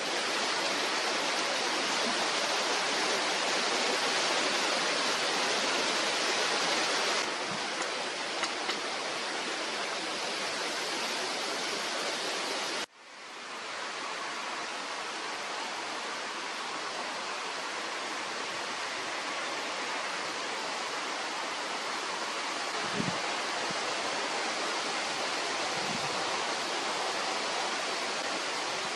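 Steady rain falling, a dense even hiss. It cuts off abruptly about thirteen seconds in and quickly comes back. Two soft low knocks are heard near the end.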